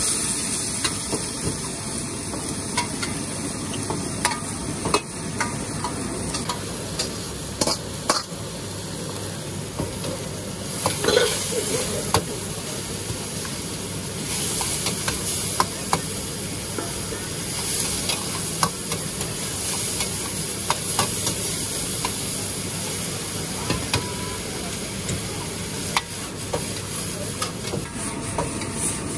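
Wok stir-frying of noodles: a steel ladle and spatula scrape and clank against the woks in frequent sharp knocks, over a steady hiss of food sizzling in the hot woks.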